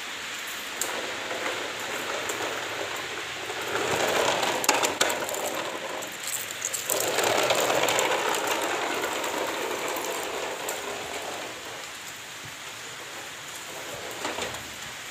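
Plastic toy dump truck dragged on a string across tile floor, its hard wheels rolling and rattling with scattered clicks, growing louder twice as it comes closer.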